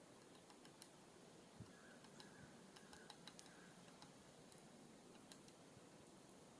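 Near silence, with faint, irregular ticks and clicks of birds pecking at a hanging seed block feeder.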